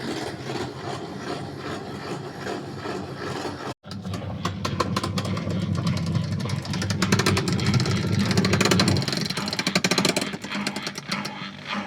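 Gafa automatic washing machine running with a steady hum and a fast clicking rattle from its broken gearbox. The rattle grows louder after a brief cut-out about four seconds in.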